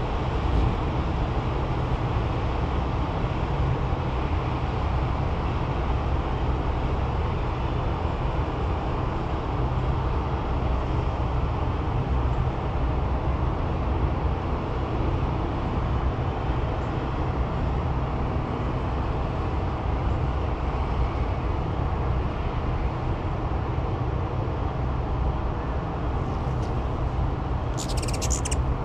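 Steady low outdoor rumble, like distant traffic, heard through the whole stretch. Near the end comes a brief burst of high ticks as a hummingbird flies off from the feeder.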